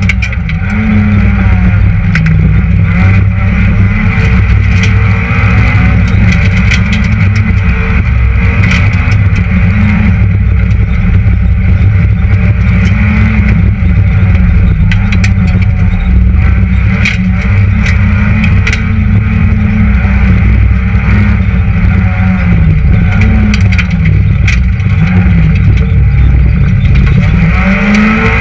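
Citroën Saxo VTS rally car's 1.6-litre 16-valve four-cylinder engine heard from inside the cabin, driven hard on a stage: the engine note climbs and drops again and again through gear changes and lifts, with frequent sharp knocks and clatter over the top.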